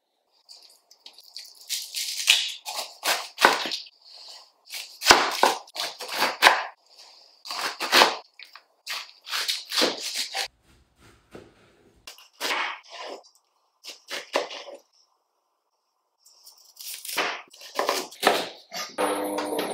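Kitchen knife cutting pineapple and then fresh ginger root on a wooden cutting board: a series of cutting strokes and knocks of the blade on the board, in runs with short pauses.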